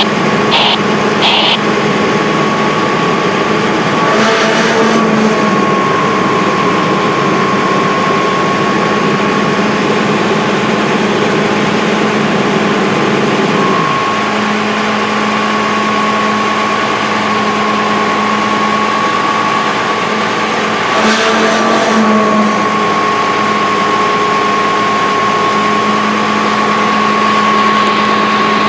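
Smeal fire truck's diesel engine and fire pump running steadily at pump speed, near 1,100 rpm, with a steady whine, while the pump is cavitating. The sound surges briefly twice, and its rough low rumble drops away about halfway through.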